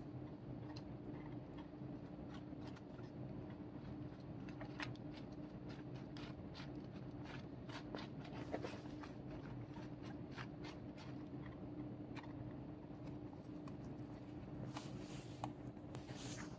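Faint dry crackling and rustling of loose hay, short irregular clicks as guinea pigs move through it at a hay box, over a steady low hum.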